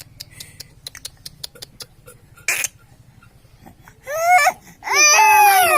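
A baby crying out twice, a short cry about four seconds in and then a longer, louder wail, after a few seconds of faint clicking.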